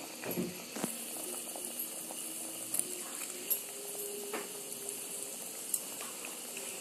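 A thick tamarind-and-spice curry (kuzhambu) bubbling at a boil in a steel pot. A few short splashes come as pieces of fish are dropped in one by one.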